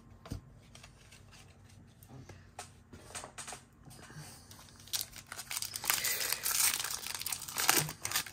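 A few light handling clicks, then from about five seconds in the foil wrapper of a baseball card pack crinkling and tearing as it is pulled open by hand.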